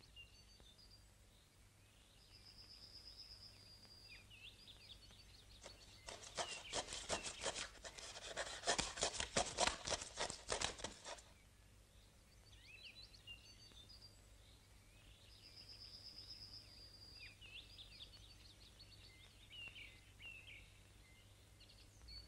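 Small birds chirping and trilling. About six seconds in comes a rapid run of sharp clicks lasting about five seconds.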